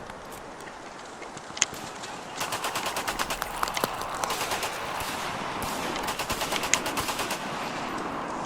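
Battle gunfire. A single shot comes about one and a half seconds in, then bursts of rapid automatic fire from about two and a half seconds on, with a few louder single shots, over a steady background of battle noise.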